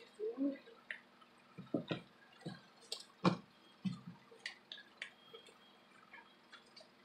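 Paper cards and envelopes being gathered and handled on a plastic-covered table: scattered light taps, rustles and clicks, with a few knocks as the stack is squared against the tabletop, the loudest about three seconds in.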